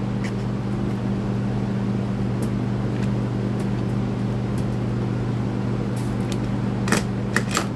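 Steady low hum of electric shop fans. A few sharp plastic clicks and knocks near the end as a trimmer's recoil starter housing is pressed and fitted onto the engine by hand.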